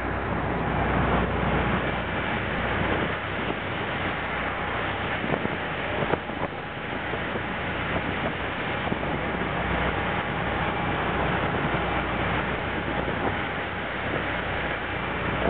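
Fast passenger ferry under way at speed: a steady engine drone under the rush of churning water from the wake, with wind buffeting the microphone.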